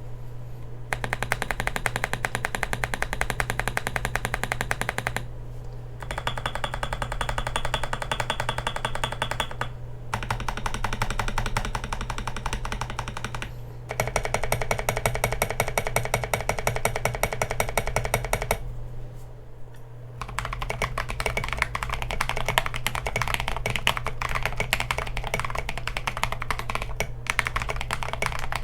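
Fast typing on a mechanical keyboard fitted with Boba U4T tactile switches, in bursts of about four seconds with short pauses. After a pause about 19 seconds in, typing carries on steadily on a keyboard fitted with Holy Boba frankenswitches, which are Boba U4T housings with Kailh Polia stems.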